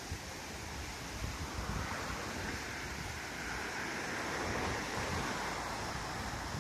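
Toki River in flood after Typhoon Hagibis: a steady rush of swollen, fast-moving water, with light wind buffeting on the microphone.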